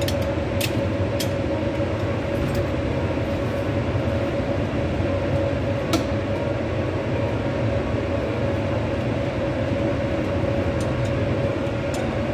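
Steady machinery drone: a continuous rumbling noise with a constant mid-pitched hum running through it. A few sharp clicks come on top, the clearest about halfway through.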